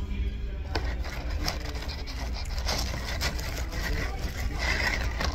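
Restaurant room noise: a steady low hum with voices in the background, and scattered clicks and rustles close by as food is handled.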